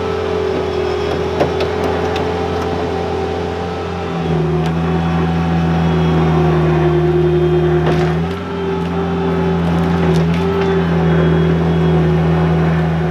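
Bobcat 642 skid steer's engine running steadily while it drags a heavy wooden shed on a chain, growing louder about four seconds in as it takes up the load, with a brief dip near eight seconds.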